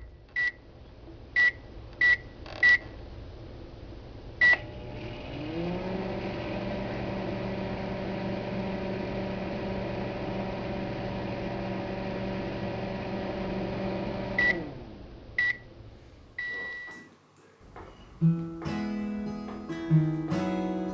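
Microwave oven keypad beeping as buttons are pressed, then the oven running with a steady hum that rises as it starts, for about ten seconds. It stops with a few beeps and one longer end beep. Acoustic guitar strumming begins near the end.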